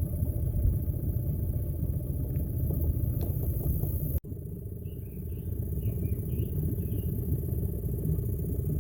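Boat motor running steadily, its sound heavy in the low end. It breaks off for an instant about four seconds in, then runs on as a steady hum.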